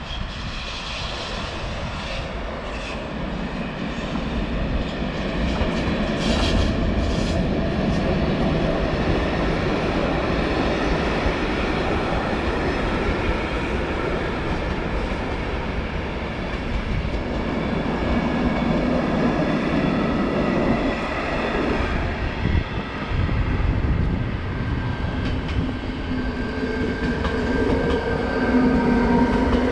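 Train moving through a station: a dense rumble and rattle of wheels on the track that grows louder over the first few seconds. A steady hum of several tones comes in near the end.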